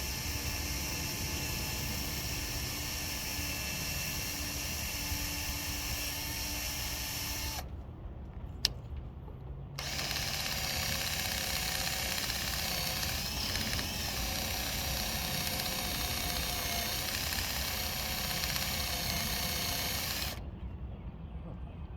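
Power drill running in two long runs, the first about eight seconds and the second about ten, with a short stop and a single click between them. The drill bit is failing to cut into the trailer's metal: it is not a metal-cutting bit and is no good.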